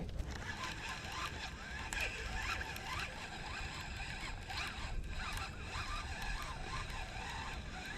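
Fishing reel being cranked steadily as a chatterbait lure is retrieved.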